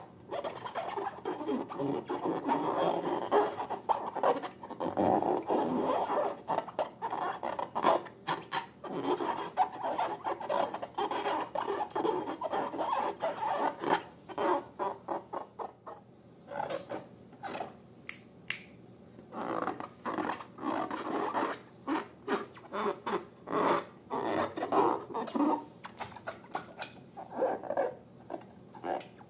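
Slime being squeezed and worked by hand: irregular rubbing with many short squelchy clicks. It thins out for a few seconds just past the middle, then picks up again.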